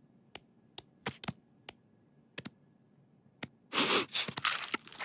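Kitchen-work sound effects: scattered sharp clicks and taps, about nine over the first three seconds, then a dense run of rapid clattering and scraping from about three-quarters of the way in.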